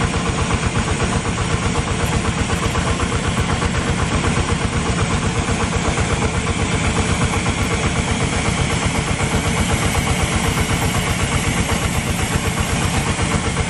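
Small engine-driven portable water pump running steadily at constant speed, with a fast, even engine beat.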